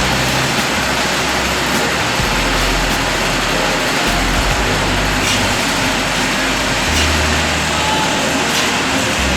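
Steady, loud machinery noise of a running engine, with a constant hiss and a low hum that shifts in pitch every couple of seconds.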